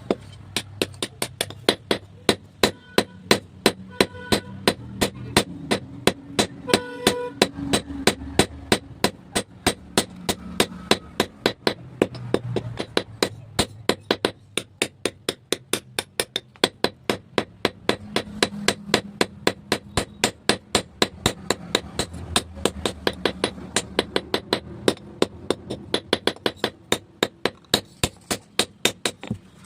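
Steady hammer blows on steel at the forge, about three strikes a second, each a sharp metallic clang, as an axe head is forged.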